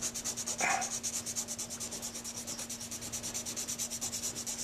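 Hand-sanding the acrylic-overcoated tip of a metal Dukoff saxophone mouthpiece with 220-grit sandpaper: quick, even back-and-forth strokes, about eight a second. A brief louder sound comes about half a second in.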